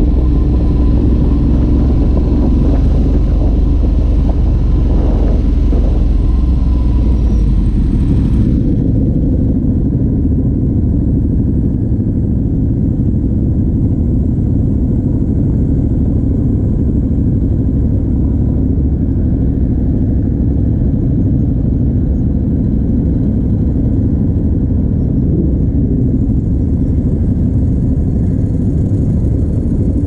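Ducati Multistrada 1200 S's L-twin engine running under way through a Termignoni racing exhaust, a steady low rumble. A higher rushing noise over it cuts off about eight seconds in.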